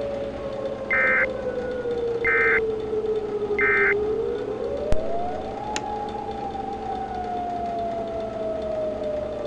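A warning siren sounding, its pitch sliding slowly down, then rising again about halfway through and falling away slowly. Near the start come three short, evenly spaced high data bursts, the Emergency Alert System end-of-message tones that close a tornado warning broadcast, and two sharp clicks fall just before the siren reaches its highest pitch.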